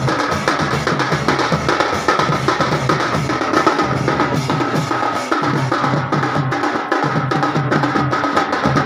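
Folk drum ensemble playing Raut Nacha dance music: dense, fast drumming with a steady high held tone over it.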